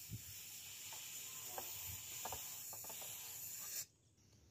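Steady hiss of air rushing out of a rubber balloon's neck as a person sucks its contents into his mouth, with a few faint rubbery rubs; it cuts off suddenly near the end as the balloon runs empty.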